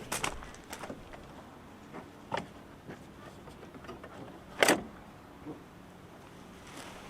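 Scattered clicks and knocks of tools and metal parts being handled while fitting an intake in a car's engine bay, with one louder knock about two-thirds of the way through.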